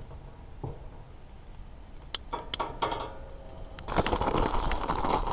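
Sharp clicks of a long-nosed lighter and the stove knob as a small propane camp stove is lit, followed near the end by a louder rushing noise.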